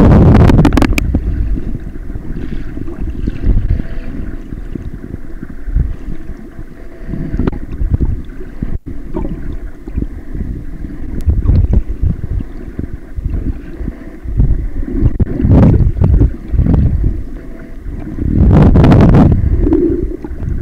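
Muffled underwater water noise picked up by a camera held just below the surface: a low, uneven rumble and slosh. It swells into louder splashing surges about a second in and again twice near the end, with a brief break about nine seconds in.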